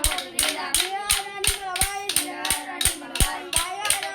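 Children singing a Jajiri folk song in chorus. Sharp strikes of kolatam sticks and hand claps keep the beat, about three a second.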